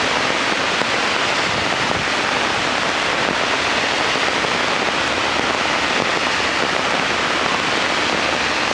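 Heavy rain falling steadily: a dense, even hiss with no letup.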